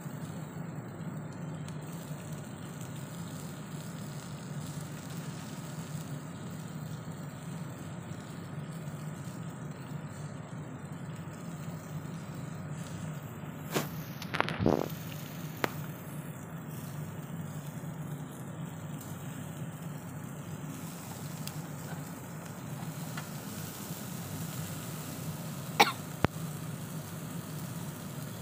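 Chicken pieces grilling over a charcoal fire against a steady low hum, with a few short sharp sounds around the middle and one near the end.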